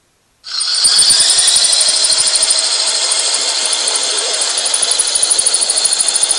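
Remote-control car's motor running, played back through two iPads' small speakers at once, so it sounds thin with no bass. It starts suddenly about half a second in and then holds steady and loud.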